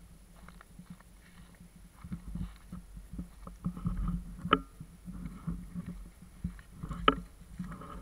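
Rumbling, bumping handling noise from an action camera being moved about at ground level, with two sharp knocks, one about halfway through and one near the end.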